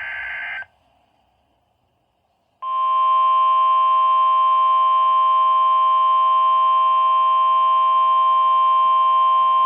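Emergency Alert System signal opening a severe thunderstorm warning. The end of a raspy digital data burst (the SAME header) cuts off just under a second in. After about two seconds of silence, the long, loud, steady attention tone starts.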